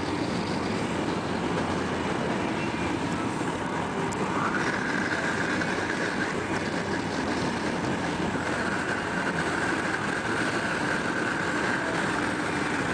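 Wind rushing past an open car window with road noise from the moving car, a steady loud rush. From about four seconds in a faint steady high whine runs over it.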